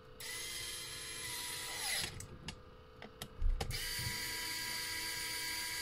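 Small electric screwdriver driving screws: a steady motor whine for about two seconds that drops in pitch as it stops. A few light clicks and a knock follow, then a second run starts just past halfway.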